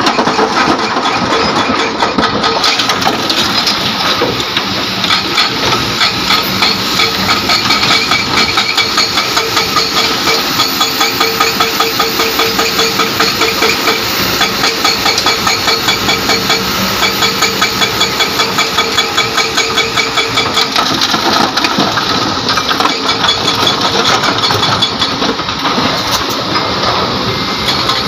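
Diesel engines of an excavator and a dump truck running steadily close by, with a dense regular pulsing throughout.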